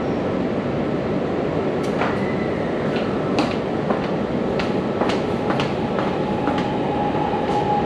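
Electric metro train on the Cát Linh–Hà Đông line (Hanoi Metro Line 2A), a steady rumble with many scattered sharp clicks and knocks. From about six seconds in, a steady whine joins it.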